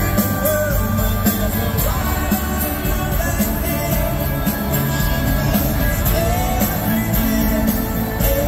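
Pop-rock band playing live, drums, electric guitar and bass under a male lead vocal, recorded from the crowd.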